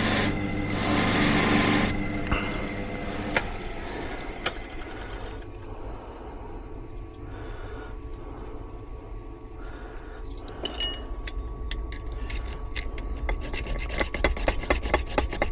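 A small bench buffing motor runs for the first two seconds or so, then stops. After that a freshly cut key is worked by hand with scraping strokes that grow into a quick rhythm of several a second near the end, cleaning up the cut edges.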